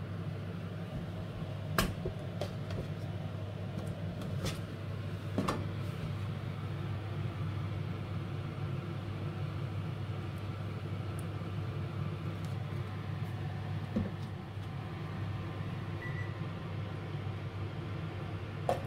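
Steady low mechanical hum, with a few short knocks and clicks as bottles and a frying pan are handled on a gas stove.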